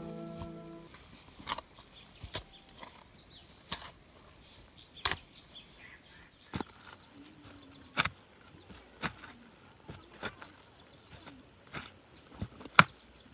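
Short-handled hoe chopping into soil and weeds, about ten sharp strikes roughly a second apart.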